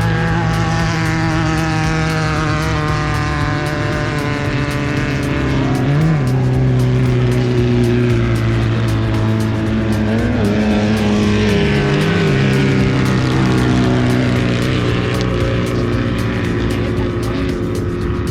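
Off-road race vehicle engine running at a steady high speed, its pitch briefly bending about six seconds in and again around ten to twelve seconds in.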